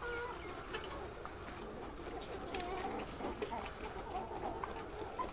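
Chickens clucking: many short, scattered calls overlapping one another.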